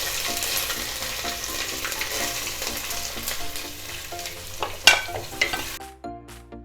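Ginger and garlic sizzling in hot coconut oil with whole spices, stirred in a pan. The sizzle fades gradually, with a sharp knock about five seconds in, and dies away near the end, leaving faint background music.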